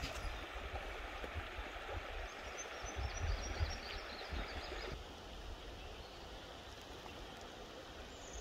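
Outdoor river ambience: a steady wash of moving water with wind gusting on the microphone. A string of faint, high chirps comes in the middle, and the background changes abruptly about five seconds in.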